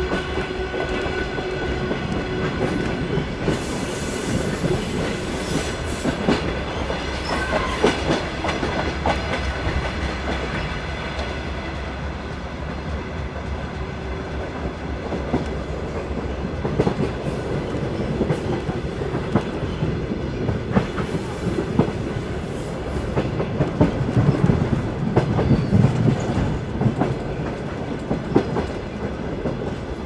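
A train running on the rails: a steady rumble with the clickety-clack of wheels over rail joints and irregular knocks.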